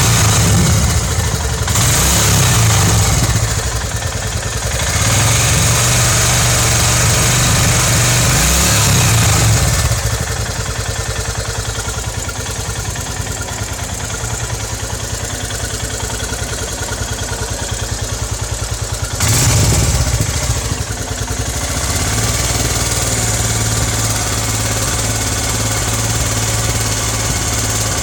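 Royal Enfield Himalayan's 411 cc single-cylinder engine running hot, mostly idling, getting louder for a few seconds at a time, with the thrashy note and the whistling 'chi chi' squeak at idle that was later traced to a defective cylinder head.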